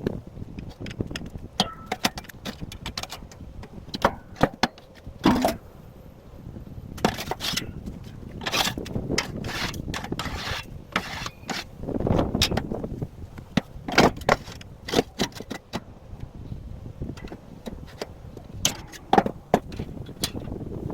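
Irregular clanks, knocks and scraping of steel parts being handled and worked on during the build of a sheet-steel roaster.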